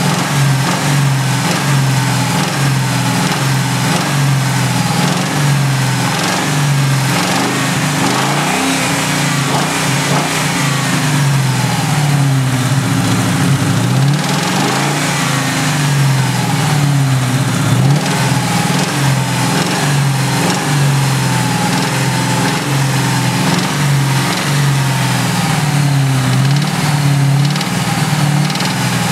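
A 1999 Mustang GT's modified 4.6 L V8 running around idle with a pulsing exhaust beat through longtube headers and a cat-back exhaust, its pitch rising and falling a little. The engine has a tapping noise whose cause the owner hasn't found.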